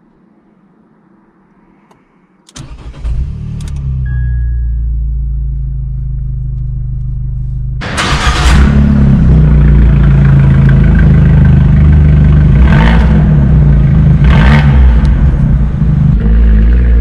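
Abarth 595 Pista's 1.4-litre turbocharged four-cylinder starting up through its Record Monza exhaust: about two and a half seconds in the engine catches and settles into a steady idle, echoing in an underground car park. From about eight seconds in it runs much louder, with three short revs of the throttle.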